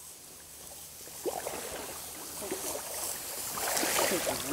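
Water splashing and sloshing as a Labrador retriever and a person wade through a shallow river, building up and getting louder toward the end.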